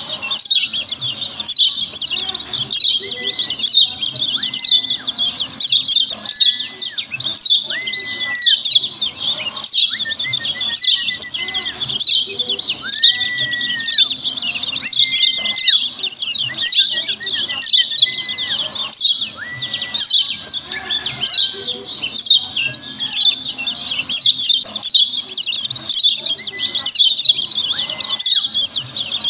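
Kecial kuning (yellow white-eye) giving rapid, high-pitched 'ciak' chirps in a continuous busy chatter, with louder call bursts roughly every second. Occasional lower whistled notes rise and fall among them. This is the clear, noisy 'ciak' call used as a lure to get other kecial to answer.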